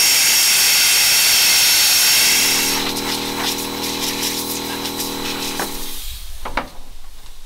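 Angle grinder cutting into black Marquina marble: a loud, steady grinding hiss. About two and a half seconds in it gives way to a quieter, steady motor hum with a whine, which stops about six seconds in.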